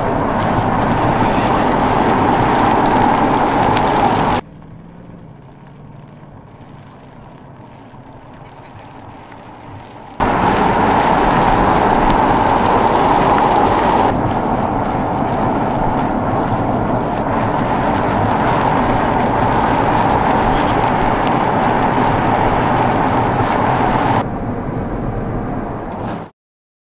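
Ford Mustang driving at speed: steady engine and road noise. It drops abruptly to a much quieter low hum for about six seconds, returns at full level, then steps down again and cuts off near the end.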